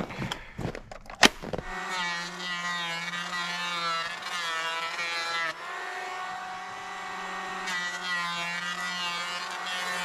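A sharp click, then a cordless electric hand planer starts up a little under two seconds in and runs with a steady high whine. The pitch wavers as the cutter head takes rough, dirty wood off a board, the level dips briefly midway, and then it picks up again.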